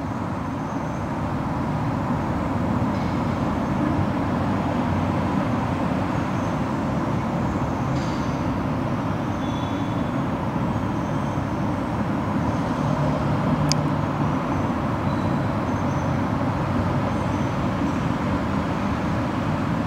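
Steady hum of road traffic, with a few faint high chirps and a single sharp click about two-thirds of the way through.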